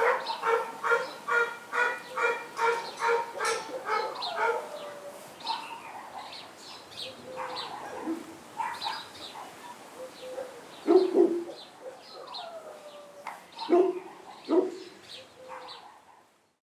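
A dog yapping in a quick, even run of about three barks a second for the first four seconds or so, then birds chirping, with a few more single barks.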